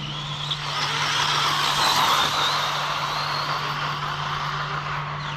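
Brushless electric motor of a stretched Arrma Typhon RC car on 6S, with a high whine and tyre rush as the car speeds past. The sound swells to its loudest about two seconds in, then fades as the car pulls away.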